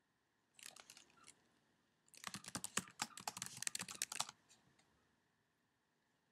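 Typing on a computer keyboard: a few keystrokes about half a second in, then a quick run of keystrokes from about two seconds to just past four seconds, entering a login email and password.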